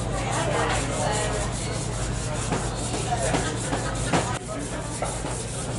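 Close rubbing and rustling handling noise as a sheathed knife is picked up and turned in the hands, with one sharp click a little after four seconds in.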